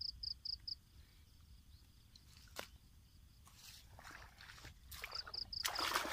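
Water splashing and sloshing as hands reach into shallow, weedy water near the end, after scattered rustling through the middle. An insect chirps in quick even pulses, about five a second, over the first second and briefly again near the end.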